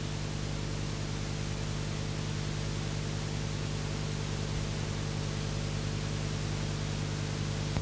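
Steady hiss with a low, even mains-type hum from an old analogue video tape's soundtrack. Nothing else stands out.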